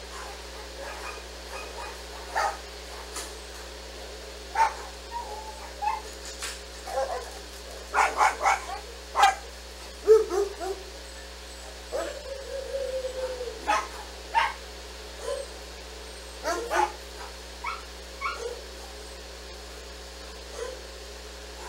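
Dogs barking and yipping in short irregular bursts, busiest around the middle, with one longer drawn-out whine about twelve seconds in.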